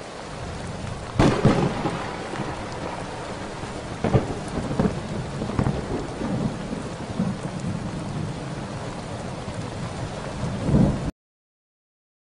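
Heavy rain falling with thunder: sharp cracks about a second in and again about four seconds in over a steady rumble and downpour. The sound cuts off suddenly near the end.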